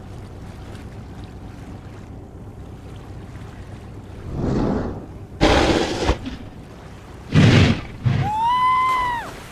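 Steady low rumble of a fishing boat at sea, broken by three loud splashing, thrashing bursts as a large flatfish is hauled against the boat's rail. Near the end comes a single high cry that rises and then falls.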